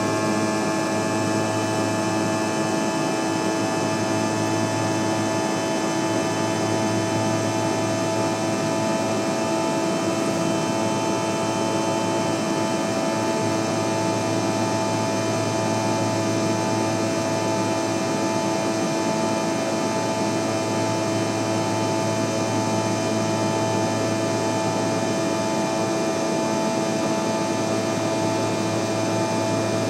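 Cabin noise of a regional jet in flight: the rear-mounted jet engines drone steadily, with several unchanging whining tones over an even rush of air.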